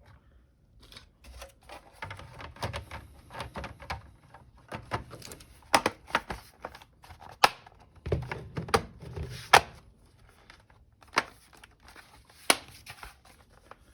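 Irregular clicks and taps from handling a laptop, with several sharper knocks and some low thuds spread through.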